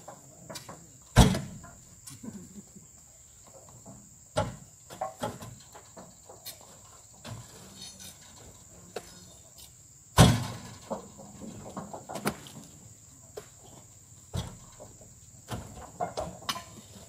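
Oil palm fruit bunches being loaded by hand onto a truck with long spiked poles: irregular knocks and thuds, with two much louder heavy thuds about a second in and about ten seconds in. A steady high insect drone sits behind.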